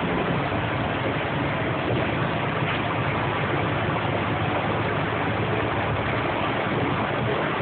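Interior noise of a New Flyer DE40LFR diesel-electric hybrid transit bus: a steady low engine hum mixed with a rushing cabin and road noise, heard from inside the passenger cabin.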